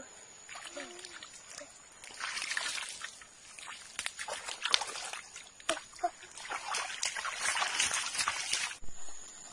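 Splashing and sloshing of shallow muddy water as hands grope in it and bare feet wade through it, in several bursts with the longest near the end.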